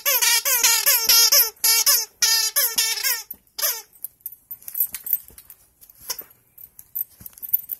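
A puppy biting a green squeaky toy snake, setting off a fast run of short squeaks that each fall in pitch. The squeaking stops about four seconds in, leaving faint rustling and light clicks as the puppy moves on the blanket.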